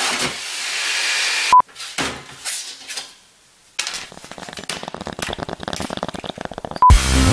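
Thin sheet steel being bent up by hand and handled on a workbench: light metallic clatter, then a run of quick, irregular rattles. A steady hiss fills the first second and a half.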